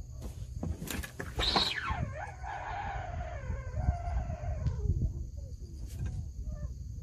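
One long animal cry of about three seconds, starting about a second and a half in, high at first and then sliding down in pitch, over a steady low rumble.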